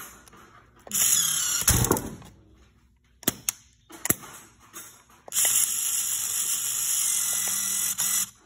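VEX robot hang mechanism with a pneumatic cylinder and gear train being worked: a burst of noise, a few sharp clicks, then a steady hiss lasting about three seconds that cuts off suddenly.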